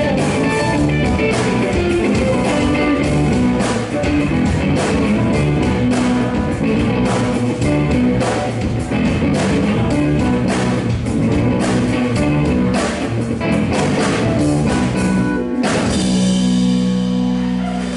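Live band playing instrumental music: electric guitar over drum kit and keyboard, with frequent drum hits. A little before the end the drums stop and a chord is held, ringing steadily.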